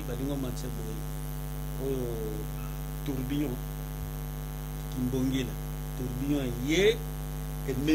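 Steady electrical mains hum with many overtones running under the recording, with a man's voice breaking in briefly several times.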